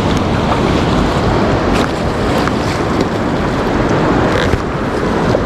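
Creek water rushing steadily, with some wind buffeting the microphone.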